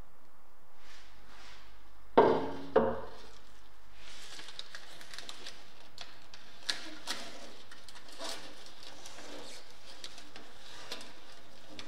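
Two ringing sheet-metal clanks a couple of seconds in, then the crinkling and crackling of aluminium foil tape being peeled and pressed down onto a painted steel oven lid, with many small sharp clicks.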